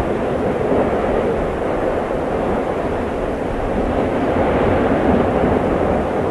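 Mount Lewotobi Laki-laki volcano erupting: a loud, steady rumble with no breaks and no change in pitch.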